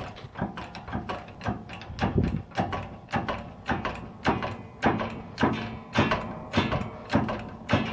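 Press tool working a new front wheel bearing into a 2003 Toyota Camry's hub, driven in steady repeated strokes: a short knock or click about two to three times a second.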